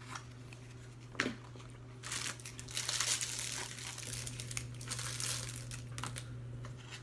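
An MRE fruit pouch of foil-laminate packaging crinkling and rustling as it is handled and torn open, for about four seconds from two seconds in, after a single tap about a second in.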